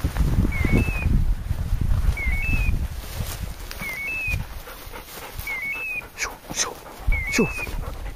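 Hunting dog's beeper collar sounding its point-mode signal: a short electronic beep stepping up in pitch, repeated evenly about every second and a half, which tells the hunter the dog is holding point. Low rustling of brush and handling noise runs underneath.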